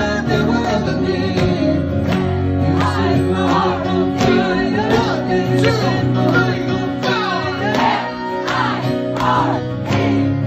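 A man singing live into a microphone over his own strummed acoustic guitar.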